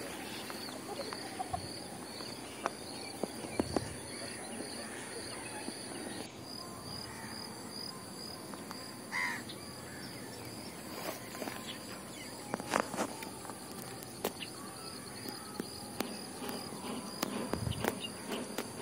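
Outdoor lakeside ambience dominated by a steady high insect drone, pulsing in rapid even chirps for the first six seconds, with one short bird call about nine seconds in. Scattered light clicks and small water splashes come from a fish being unhooked and put into a mesh keep net by someone standing in the water.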